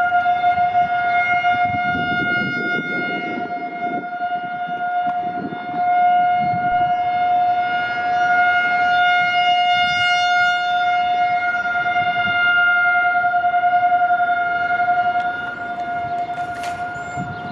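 Federal Signal 2001-SRN rotating electromechanical outdoor warning siren sounding a steady single-pitch tone for its monthly test, echoing off the surrounding buildings. It grows louder and fainter as the rotating head sweeps around, loudest in the middle and fading near the end.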